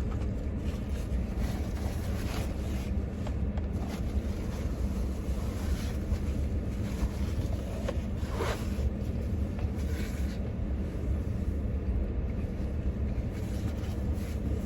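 Steady low rumble, like a vehicle's idling noise, with faint rustling and a brief swishing sound about eight seconds in.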